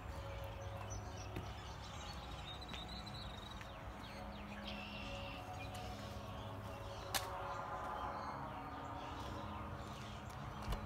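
Wild birds calling, with short high chirps now and then over a steady low outdoor rumble. A single sharp click comes about seven seconds in.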